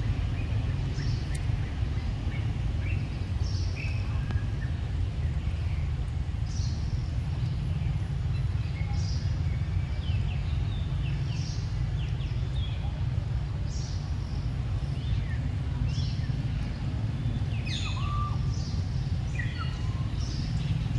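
Birds chirping and calling in short, scattered notes, some quick falling whistles, over a steady low rumble.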